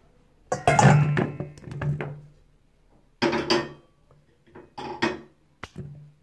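Sliced raw potatoes tipped into a stainless steel bowl, clattering against the metal in several bursts. The longest and loudest comes about half a second in, with shorter ones later.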